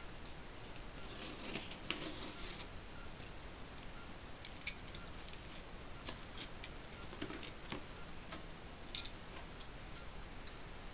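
A knife cutting open a cardboard parcel: faint scratchy slicing through tape and card, with scattered light clicks as the box is worked open.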